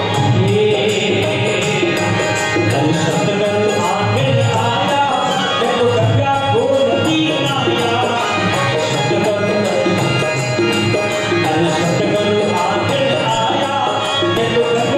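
A male singer performing a Marwari devotional bhajan to harmonium accompaniment, with percussion, as continuous loud music.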